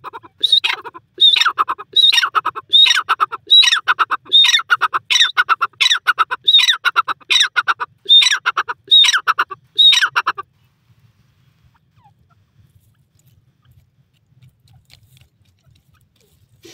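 Grey francolin calling: a loud, steadily repeated phrase, about thirteen times at a little over one a second, each opening with a high note that drops into a lower stuttering run. The calling stops about ten seconds in.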